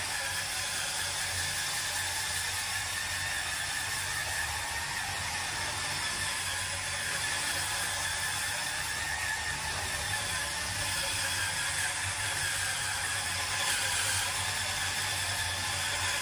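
Hurricane Spin Scrubber's electric motor running with a steady whir and low hum, its spinning brush head scrubbing ceramic shower wall tile.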